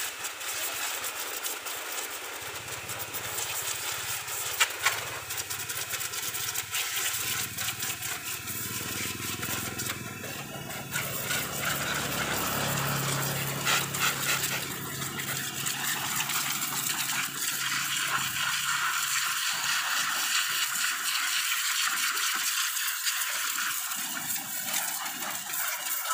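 A pressure washer spraying water, with a steady hiss from the jet throughout. The machine's motor hums from about two seconds in and cuts out at about nineteen seconds while the spray noise goes on.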